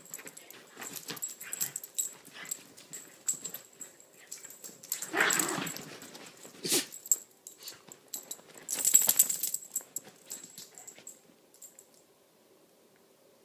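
A Chiweenie and a Rat Terrier–Chihuahua mix play-fighting on a bed: scuffling in the bedding mixed with small-dog play noises, in irregular bursts. The loudest bursts come about five and nine seconds in, and the sound dies away near the end.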